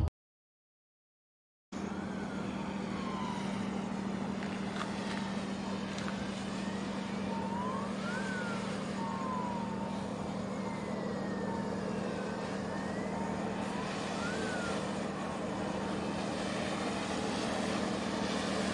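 After a second or so of silence, a steady low hum starts over a wash of ambient noise. A faint siren wails slowly up and down in pitch several times.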